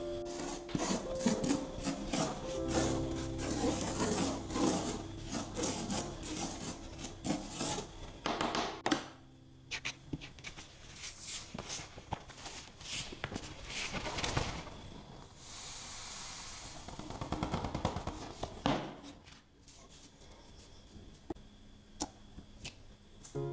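Hands rubbing coloured sand onto adhesive sticker paper and clearing away the loose black sand: dense scratchy rubbing for the first several seconds, then quieter rubbing with a few light taps. Soft background music plays at the start.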